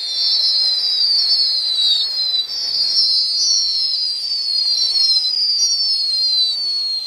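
A musical garland of whistling firecrackers going off on the ground: many high whistles overlapping one after another, each falling slightly in pitch, which stop abruptly at the end.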